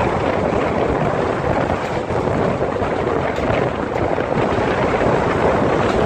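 Wind buffeting the microphone, mixed with road noise from the moving vehicle it is filmed from: a loud, steady, even rush with no clear engine note.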